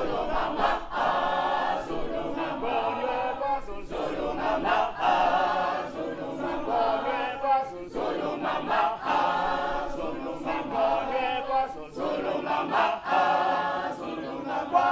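A large mixed group of men and women singing together a cappella, led by a man, in phrases that break every second or two.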